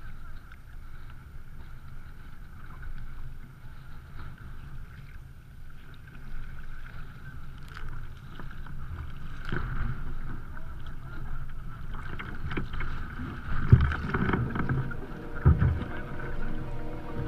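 Water washing and splashing along a sea kayak's hull as it is paddled, with wind rumbling on the microphone. It grows busier in the second half, with a few louder splashes.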